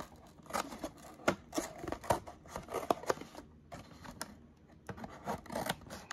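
Glued top flap of a cardboard card box being pried and peeled open by hand: irregular scraping, rubbing and sharp little ticks of the cardboard, with a short pause a little past halfway.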